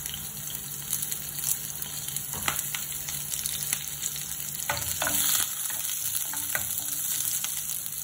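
Fresh curry leaves and green chilli sizzling in hot oil with mustard seeds, the tempering (tadka) stage of the dish: a steady sizzle with occasional sharp pops.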